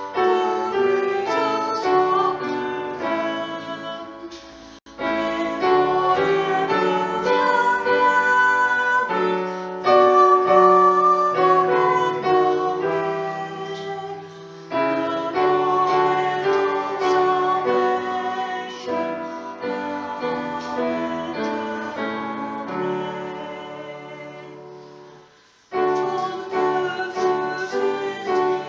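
A hymn played on piano in sustained chords, phrase by phrase, with voices singing along. New phrases start about every five seconds, and the sound dies away near the end of each.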